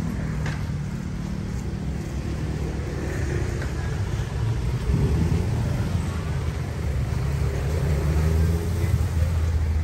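Street traffic: motor vehicle engines running close by with a steady low hum, growing somewhat louder in the second half.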